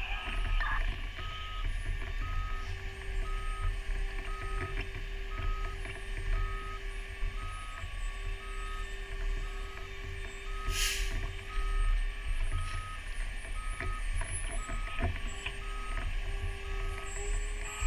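Fire apparatus back-up alarm beeping steadily, about one beep a second, over the low rumble of the truck's diesel engine running. A short hiss sounds once about eleven seconds in.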